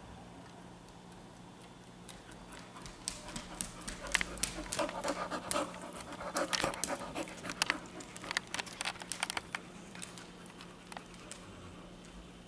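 Boxer dog panting close by, with sharp clicks from about two seconds in to about ten seconds in, typical of claws on a hardwood floor.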